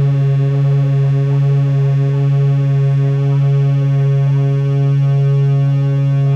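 Synthesizer playing the Philadelphia Flyers' hockey goal horn: one long, low, steady horn tone.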